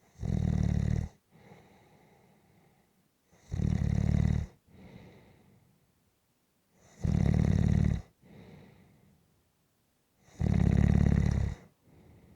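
A sleeper snoring in a slow, even rhythm. There are four loud snores, each about a second long, coming roughly every three and a half seconds, with a much softer breath after each one.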